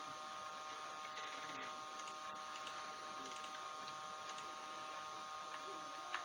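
Faint steady electrical whine of a few fixed high tones over a low hiss, with a few faint ticks.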